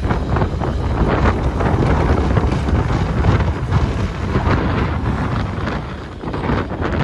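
Blizzard wind blowing hard across the microphone, a dense rushing noise heaviest in the low end that rises and falls in uneven gusts, easing a little about six seconds in.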